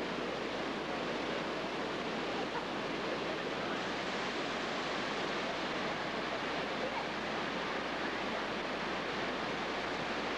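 Waterfall and white-water river rapids rushing steadily: an even hiss of falling water with no breaks.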